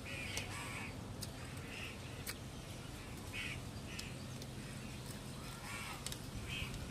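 Birds calling outdoors: short, harsh calls repeated about six times across a few seconds, with faint sharp clicks in between.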